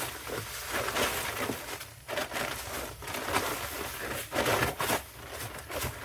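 Loose granular filter media being poured and worked into a gray water filter bin by hand: a string of irregular gritty crunching rushes, several surges a second or so apart.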